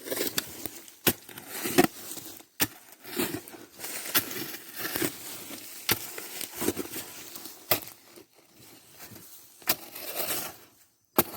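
Irregular knocks and scraping of hand tools digging into earth and roots at an armadillo burrow, with a sharp knock every half second to a second and a quieter stretch near the end.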